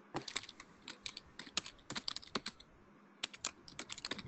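Faint typing on a computer keyboard: a run of quick, irregular key clicks, with a short pause about three seconds in.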